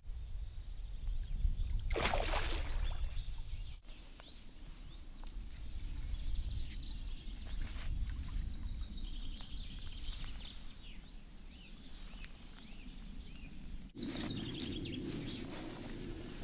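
Outdoor ambience with a steady low rumble and birds chirping, a loud rush of noise about two seconds in, and rustling of hands handling a carp in a landing net on an unhooking mat in the last couple of seconds.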